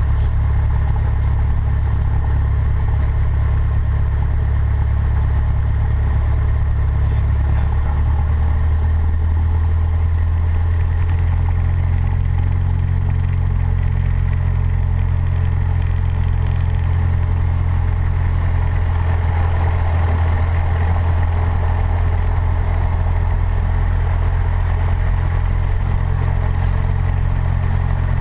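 Cessna 152's Lycoming O-235 four-cylinder piston engine running steadily at low power, a loud low drone whose pitch shifts slightly about eight seconds in.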